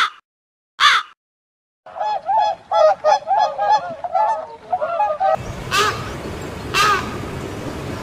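Waterfowl calling: two loud single calls a second apart, then from about two seconds in a rapid run of nasal mallard quacks for about three and a half seconds. In the last part, two more calls over a steady background hiss.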